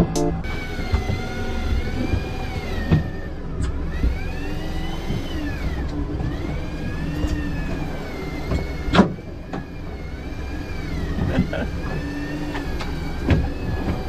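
Boat's outboard motor running, its pitch rising and falling in slow arcs about every two seconds, with a few sharp knocks on the hull and gear, the loudest about nine seconds in.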